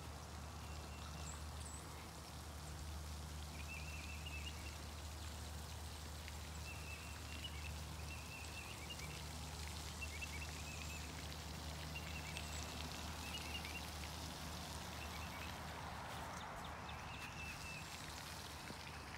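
Pond fountain spraying and splashing, a steady watery rush, with a high chirping trill repeating every second or two and a steady low hum beneath.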